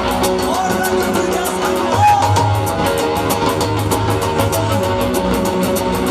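Live band music with no singing: electric guitar and keyboard over a steady drum beat.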